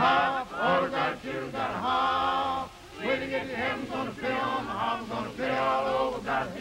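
Church choir singing together, in sung phrases of roughly a second each with short breaks between them.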